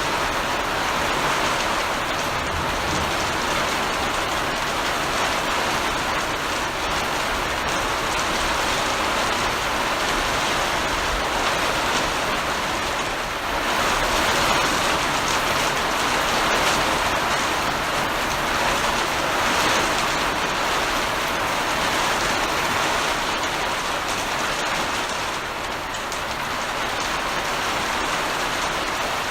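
Heavy rain falling steadily in a dense downpour, swelling a little now and then. No thunderclap stands out.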